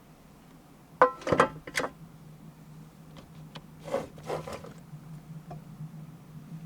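Knocks and rubbing of things being handled, a cluster about a second in and another about four seconds in, over a faint steady low hum.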